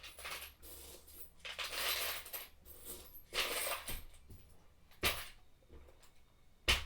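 Small hard objects clinking and rattling in three short bursts, then two sharp clicks near the end.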